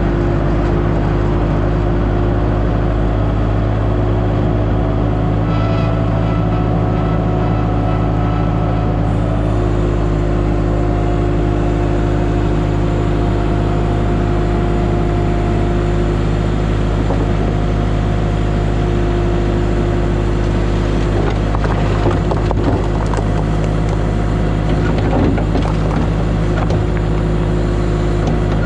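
Diesel engine of compact earth-moving equipment running steadily under work, with a few short knocks and clunks about 22 and 25 seconds in.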